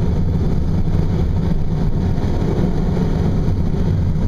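Steady low rush of air streaming over a glider's canopy, heard from inside the cockpit.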